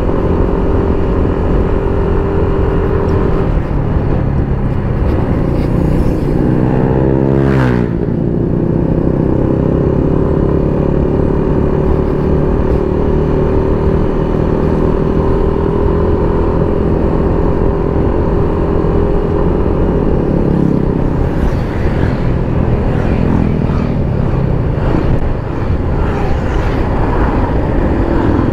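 Motorcycle engine running steadily under way, heard from the rider's own bike with road and wind noise beneath it. About six to eight seconds in the revs climb, then drop back sharply and settle.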